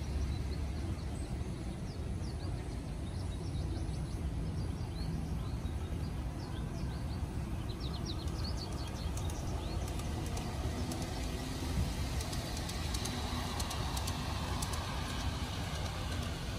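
Birds chirping over a steady low rumble. In the last few seconds, a large-scale garden model train's wheels click and hum on the track as it comes past.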